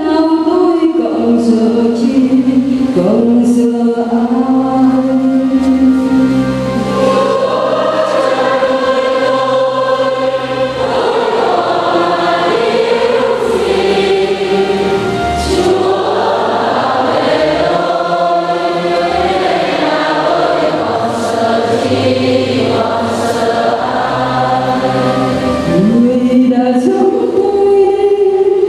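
Church choir singing a responsorial psalm, several voices in harmony without a break.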